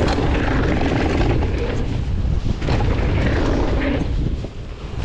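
Wind buffeting an action camera's microphone during a fast mountain-bike ride on a dirt trail, a heavy low rumble with tyre noise and the clatter of the bike over rough ground. The noise drops briefly near the end.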